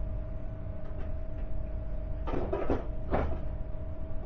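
Steady low rumble with a constant pitched hum, and a few short bursts of voices a little past halfway through.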